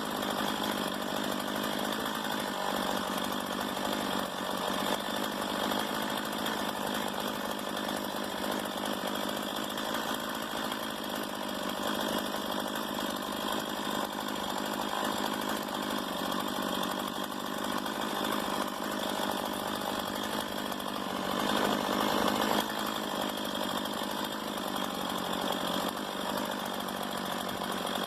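Stihl MS 170 two-stroke chainsaw running steadily, briefly louder for about a second three-quarters of the way through.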